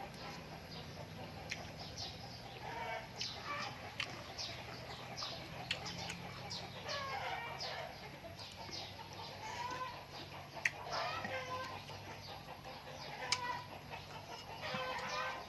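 Chickens clucking over and over, short calls every second or two, with a few sharp clicks scattered among them.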